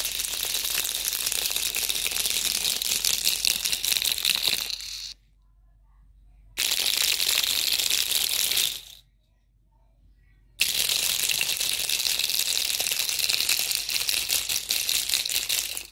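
PEMF mat pulsing under a frequency-train program, a fast, dense rattle that runs in three stretches of about five, two and five seconds, with brief silent gaps between them.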